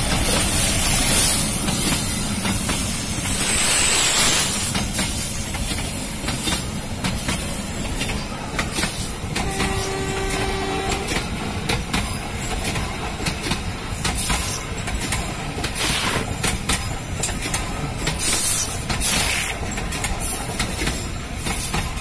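Passenger train coaches rolling past at close range: a steady rumble and rush from the wheels, broken by repeated clicks as they run over the rail joints. A short steady tone sounds for a second or so about halfway through.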